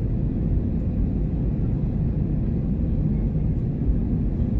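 Steady low rumble of jet engines and rushing air inside the cabin of an Airbus A320 climbing after takeoff.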